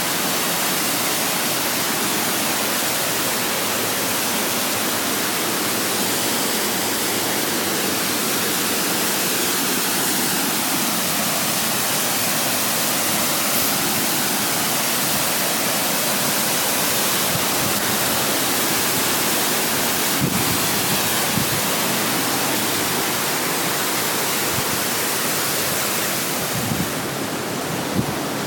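Waterfall: a steady, loud rush of falling water spread evenly from low to very high pitches, with a few faint clicks near the end.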